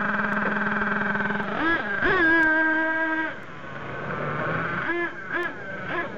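Nitro engine of a Thunder Tiger MTA4 S28 RC monster truck idling steadily, then revving sharply twice and holding a high whine for about a second as the truck pulls away. It then drops and fades, with a few quick throttle blips as the truck drives off.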